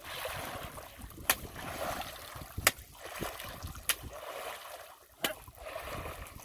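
Shallow creek water being slapped and splashed by hand among submerged mangrove branches: four sharp slaps about every second and a quarter, with the wash of splashing water between them. The beating drives fish out of the tangle toward a waiting cast net.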